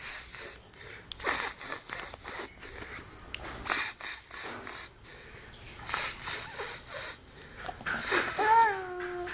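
Runs of about four quick sibilant 'ts-ts-ts' hisses, repeated every second or so, the kind of sounds made to catch a baby's attention. Near the end a baby gives a short coo that falls slightly in pitch.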